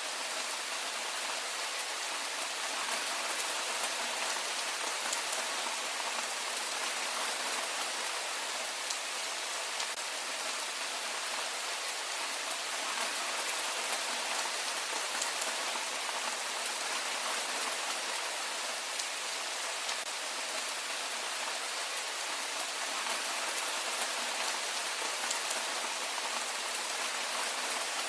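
Heavy rain falling steadily, a dense even hiss of rain with fine scattered drop ticks.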